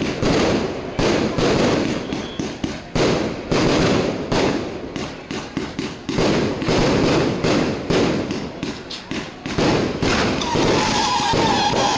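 Fireworks going off in an irregular series of booms, each with a rumbling tail and crackling in between. A steady high tone comes in near the end.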